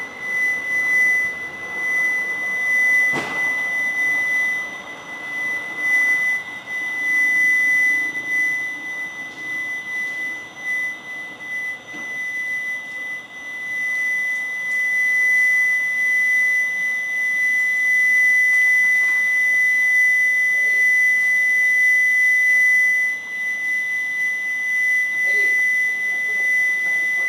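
A steady high-pitched tone held on one note, with a fainter higher tone above it, wavering in loudness over a hiss: the unexplained night-time 'hum', which the recordist calls very loud and impossible to place. A single knock about three seconds in.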